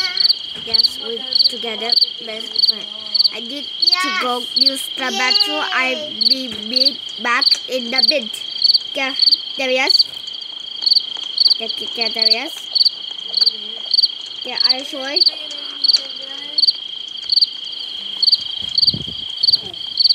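Video-game night ambience of crickets: a steady high chirring with a sharper chirp repeating evenly, a little under twice a second.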